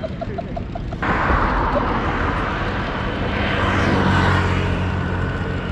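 A motor vehicle passing close by: a wash of engine and tyre noise with a low hum that swells to a peak about four seconds in and then eases off.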